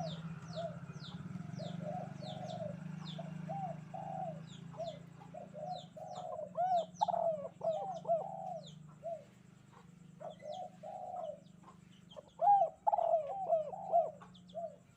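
Spotted doves cooing over and over in short arched notes that overlap and cluster, loudest about halfway and again near the end. Small birds chirp high above them in quick falling notes, and a low steady hum runs underneath.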